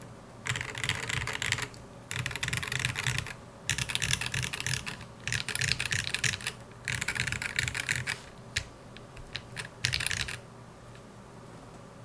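Typing on a Smith and Rune IRON180 custom mechanical keyboard with lubed, filmed Gateron Ink Black linear switches, a full brass plate and a brass bottom. The keystrokes come in runs of a second or so with short pauses, then a few single keystrokes, and stop about ten and a half seconds in.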